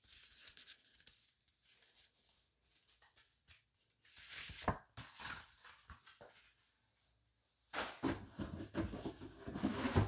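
Paper and cardboard packaging being handled: scattered light rustles, a louder bout of rustling about halfway through, then steady rustling and scraping near the end.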